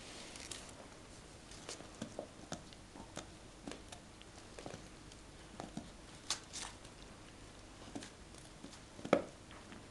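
Golden retriever chewing, with irregular soft clicks and smacks, the loudest about nine seconds in.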